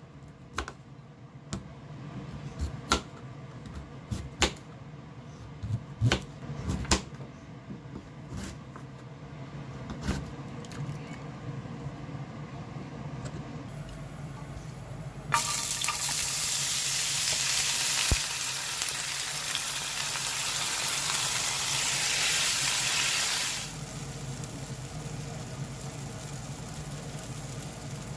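Sharp clicks and knocks of kitchen utensils and cookware, one after another, over a low steady hum. About halfway through, a kitchen tap is turned on and water runs into the sink steadily for about eight seconds, then it is shut off.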